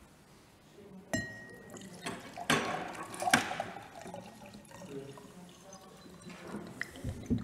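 A drinking glass clinks about a second in and rings briefly, then water is poured into a glass for about a second, among small handling noises on a table.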